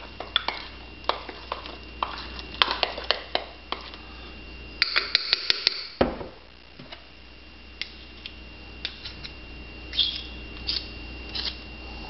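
A metal spoon clinking and scraping against a mug as a thick, wet cake batter is stirred. The clinks are scattered, with a quick run of them about five seconds in and a few more near the end.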